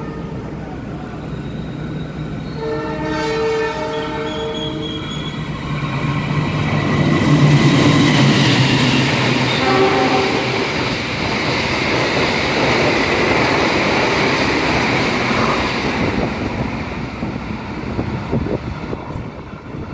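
Argo Wilis express train passing straight through a station on the next track. Its horn sounds for a couple of seconds a few seconds in, then the rush and clatter of the passing train builds, is loudest around eight seconds in, and dies away over the last few seconds.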